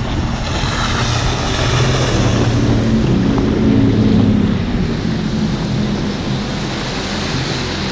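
Motorboat engine running under way over rushing wind and water noise. Its note swells and rises slightly in pitch a few seconds in, then eases back.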